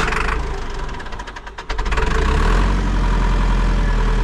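Caterpillar 205LC excavator's diesel engine cranking over on the starter in quick even strokes, then catching about two seconds in and running steadily.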